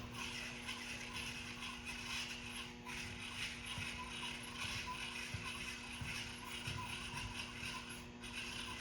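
Hand-crank gear winder steadily winding a model helicopter's rubber-band motor, its gears giving off a continuous fast clicking rattle.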